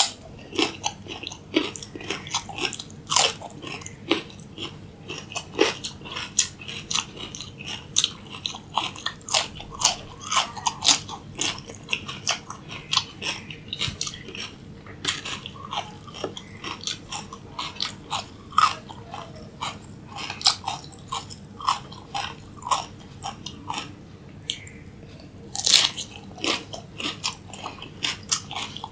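Raw carrot and cucumber sticks being bitten and chewed: a dense run of crisp crunches, several a second, with a few louder bites.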